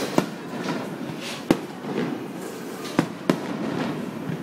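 Aerial fireworks shells bursting: four sharp bangs, the loudest about a second and a half in, and two in quick succession about three seconds in.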